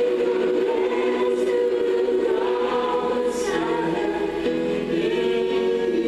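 Choir singing gospel music, holding long notes that shift pitch every second or so.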